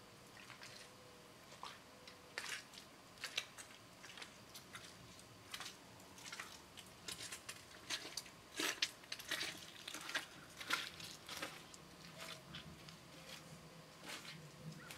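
Boots squelching and crunching through wet mud in irregular steps, loudest and closest around the middle.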